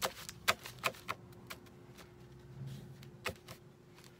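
A stack of paper sheets handled and squared up by hand: a handful of short, sharp taps and paper rustles, four in the first second and a half and one strong tap about three seconds in.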